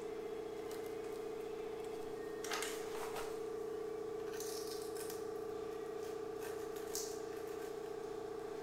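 A few short scrapes and clicks of floor tile being set in thinset and worked with a trowel, over a steady mid-pitched hum.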